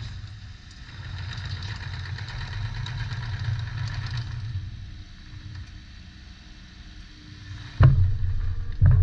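Diesel engine of a Volvo ECR25D mini excavator idling steadily. Near the end the sound suddenly gets much louder.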